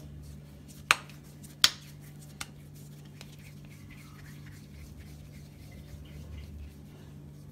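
Hands sprinkling flour onto a marble worktop, with two sharp taps about three quarters of a second apart near the start and a smaller one just after. Then faint soft rubbing of hands working a piece of dough, over a low steady hum.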